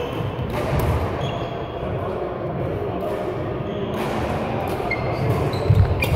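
Badminton hall sounds: sharp racket-on-shuttlecock hits and footfalls on the court floor, echoing in a large sports hall over indistinct voices, with a few heavier thumps near the end.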